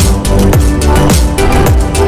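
Electronic dance music with a fast, driving beat and deep bass notes that slide downward in pitch about every three-quarters of a second.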